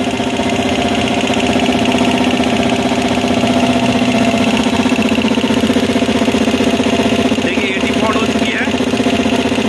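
Elgi 5 hp reciprocating air compressor running steadily under load: the electric motor drives the twin-cylinder pump by belt, with a fast even pulsing hum, as it pumps up its receiver tank.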